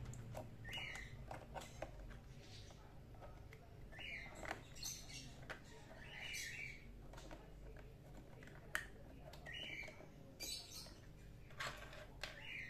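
Small birds chirping in short calls at irregular intervals, with light clicks and taps from plastic parts and wires being handled; one click about two-thirds of the way through is sharper than the rest.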